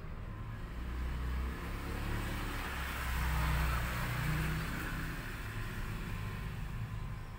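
A motor vehicle's engine running, growing louder to a peak around the middle and then fading, as when it passes by.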